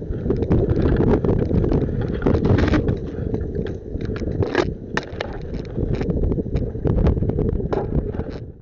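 Wind buffeting the microphone as a dense low rumble, with irregular sharp clicks and knocks scattered through it.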